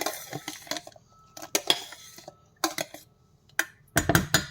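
Kitchen utensils clinking and knocking against a pot and dishes in about five short, irregular bursts of clatter, the last about four seconds in being the loudest.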